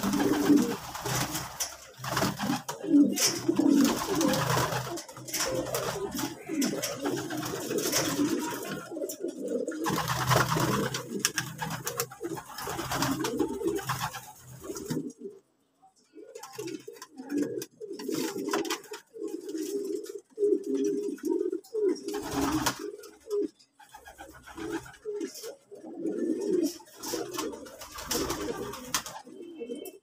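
Several racing pigeons cooing, their low coos overlapping continuously. A rustling noise lies over them in the first half and stops about halfway through.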